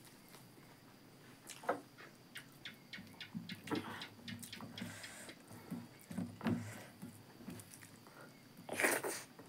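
Close-miked eating by hand: chewing and wet mouth smacks, with fingers gathering and mixing rice and buffalo meat on a steel plate in a run of small clicks and knocks. A short, louder rush of noise comes near the end.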